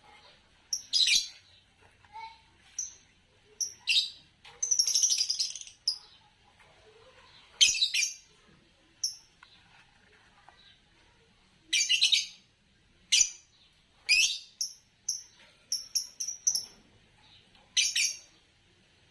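A pair of green Fischer's lovebirds chirping: short, high-pitched chirps at irregular intervals, with a longer chattering run of about a second roughly five seconds in and a quick string of chirps near the end.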